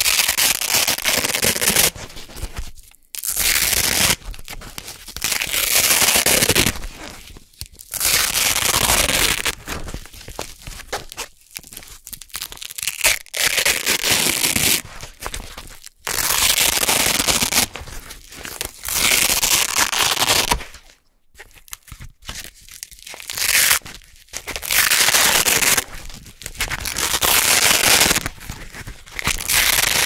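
Hook-and-loop (Velcro) fastener, a blue hook strip on red loop fabric, peeled apart over and over close to the microphone: a loud, super crunchy ripping in pulls of one to two seconds with short pauses between.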